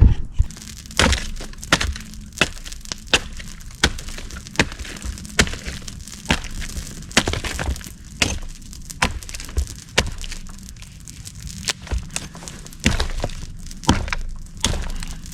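Wood being cut up for a campfire: a string of sharp, irregular cracks and knocks, roughly one a second.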